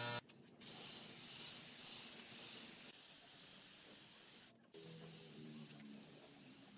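Air-fed gravity-cup spray gun hissing steadily as it sprays finish, broken by two brief dropouts, one about half a second in and one about four and a half seconds in.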